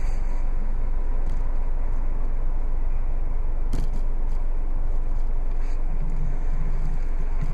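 Steady low rumble and hiss of background noise inside a car's cabin, with a faint click about four seconds in.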